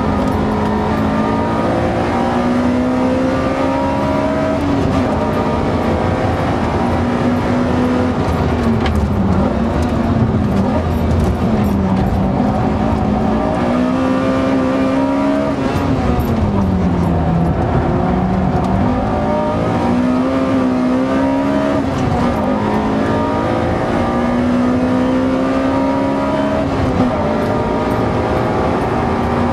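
Honda Accord Euro R (CL7)'s K20A four-cylinder engine, heard from inside the cabin, driven hard on a circuit lap. The note climbs steadily through each gear and drops sharply at the shifts. Under braking it dips and jumps back up with heel-and-toe throttle blips on the downshifts.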